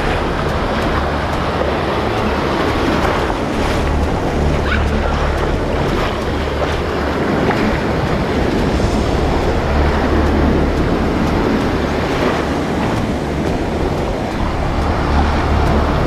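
Ocean surf washing steadily, with gusts of wind buffeting the microphone every few seconds.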